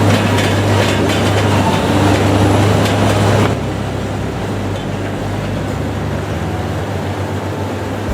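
Heavy railroad-tie cutting machine running, with a steady low hum and a dense grinding noise. The noise drops a little in level about three and a half seconds in and then carries on steadily.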